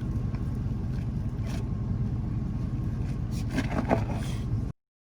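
A steady low rumble with a few brief scrapes and knocks about three and a half seconds in; the sound cuts off abruptly to silence near the end.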